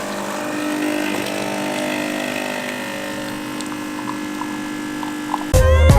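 A steady droning hum made of several held tones, then loud electronic music with heavy bass starts near the end.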